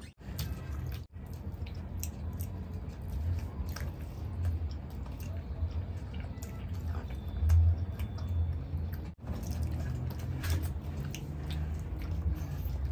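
Close-miked eating of masala chaap in thick gravy: chewing, lip smacks and the wet squish of fingers scooping through the gravy, as scattered short clicks over a steady low hum.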